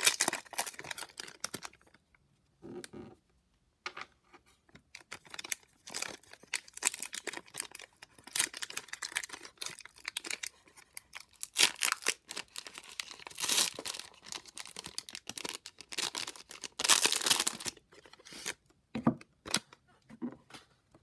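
Plastic wrapper of a trading-card fat pack being crinkled and torn open by hand, in irregular bursts with two longer, louder rips in the second half.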